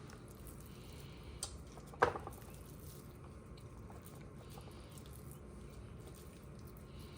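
Hands squishing and pressing raw ground rabbit meat into muffin tin cups, faint and soft, with a sharp knock about two seconds in.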